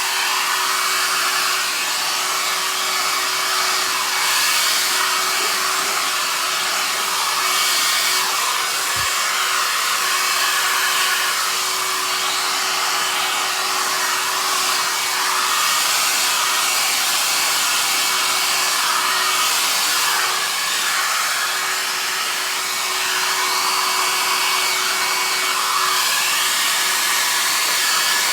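Handheld hairdryer running steadily, its airstream hissing with a faint motor hum, rising and falling slightly in level as it is moved, blowing wet acrylic pour paint across a canvas.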